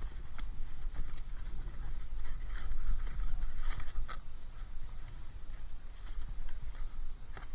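Rummaging through a cardboard box of scrap in a skip: rustling and scattered knocks and clicks over a low steady rumble.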